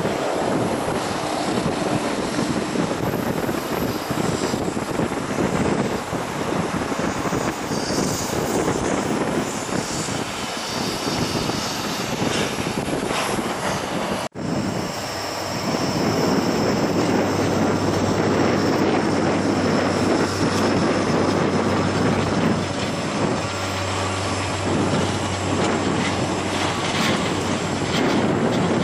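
Twin jet engines of a Boeing 777 Freighter running as it taxis, a steady jet noise with a low hum and high whine, mixed with wind on the microphone. The sound cuts out for an instant about halfway through.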